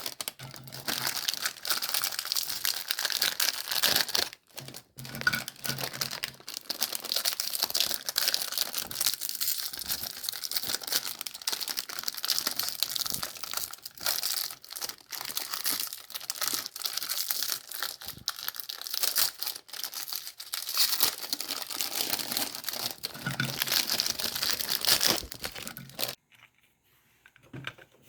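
Meat grinder crunching through Golden Oreo cookies: a dense, continuous crackling and crunching that stops abruptly near the end.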